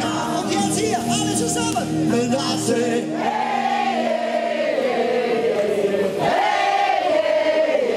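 Live band music amplified through PA speakers, guitar with singing, the crowd singing along. About three seconds in, the bass and backing drop away, leaving mostly the sung melody.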